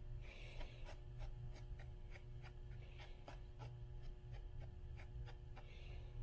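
Fingernails tapping and scratching on the cloth and foil covers of old hardback books: a run of light taps, about three a second, over a low steady rumble. A breathy exhale comes just after the start and another near the end.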